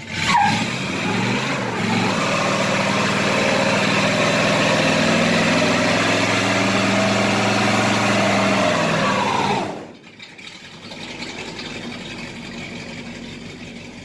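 Pickup truck engine through dual exhausts, revved up and held at high revs for about ten seconds, then dropping suddenly back to a quieter idle.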